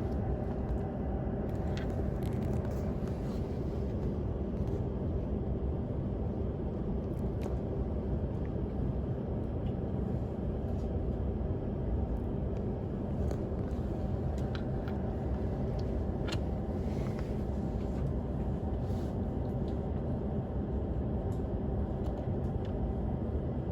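Steady low hum inside a stopped train carriage, from the car's onboard equipment and ventilation running while it stands still after an emergency stop, with a few faint clicks.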